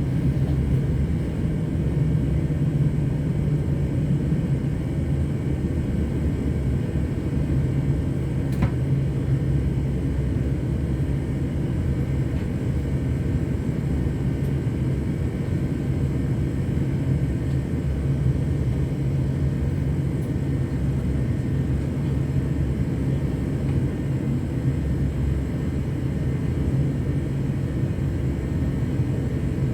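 Steady running rumble of a Class 730/2 electric multiple unit heard from on board, wheels on track and traction noise with a low hum, and one faint click about nine seconds in.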